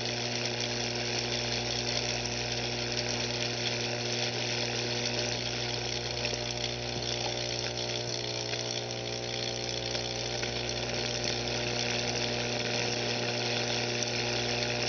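A 15,000-volt electric arc burning through a chicken egg between wire electrodes: a steady electrical buzz with a hiss over it, the current shorting through the egg's cooked contents and shell.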